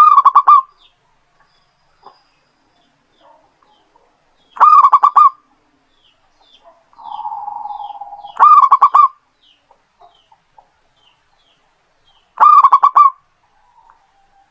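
Zebra dove (perkutut) cooing: four loud phrases of quick rolling notes, each under a second long and about four seconds apart, with a softer drawn-out note just before the third. Faint short chirps of small birds run behind.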